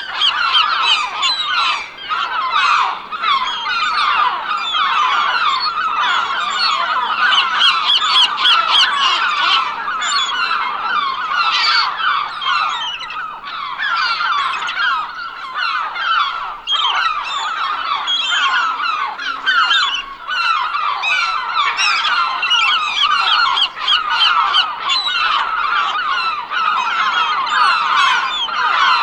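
Large flock of birds calling all at once, many short calls overlapping into a continuous din.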